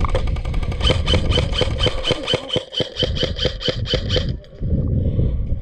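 Airsoft electric rifle, a G&G CM16, firing a long rapid string of shots, several a second, that stops about four seconds in.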